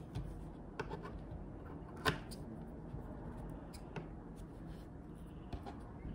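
Scissors snipping loose thread ends off a sewn cotton face mask: a few separate sharp snips, the loudest about two seconds in.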